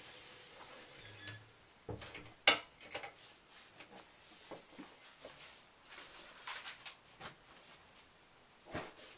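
Small handling and movement noises of a person walking about a small room with a handbag: soft footsteps and rustling, with one sharp click about two and a half seconds in.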